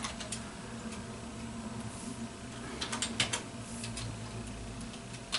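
Keystrokes on a computer keyboard as a password is typed: a few scattered taps, then a quick run of several about three seconds in, over a low steady hum.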